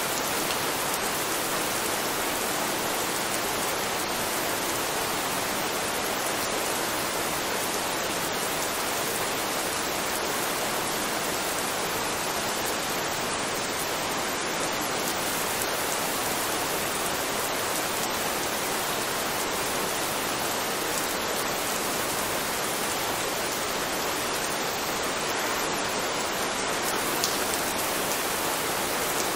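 Steady, even rain, a continuous hiss of falling rain at a constant level, with one sharper tick near the end.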